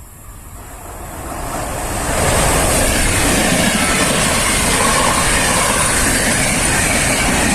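Passenger train approaching and then passing at speed through a station. It builds over the first two seconds into a loud, steady rush of wheels on rail with a high hiss over it.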